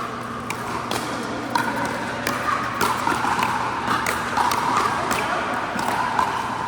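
Pickleball rally on an indoor court: sharp, hollow pops of paddles striking the plastic ball, coming every half second to a second, over a steady background din.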